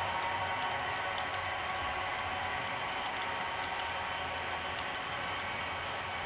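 HO-scale model freight cars rolling over the track, their metal wheels clicking irregularly at rail joints, over a steady hum.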